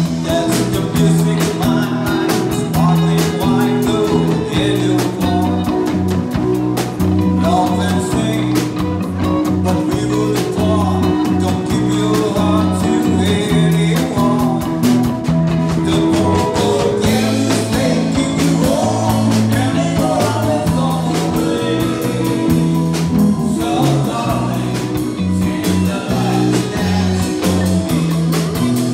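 A live band playing a song: a vocalist singing through a microphone over amplified electric guitar, bass guitar and drums, with a steady beat.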